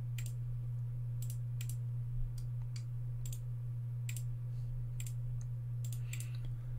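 Computer mouse and keyboard clicks: about a dozen sharp, irregularly spaced clicks over a steady low hum.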